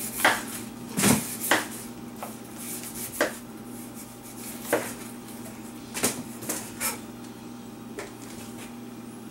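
Knife paring the rind off a green honeydew melon over a wooden cutting board: sharp clicks and scrapes of the blade, about nine scattered strokes, over a steady low hum.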